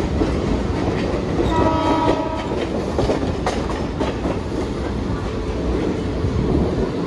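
Mumbai local electric train running with a steady rumble and wheel clatter, and a short horn note of about a second sounding near the start.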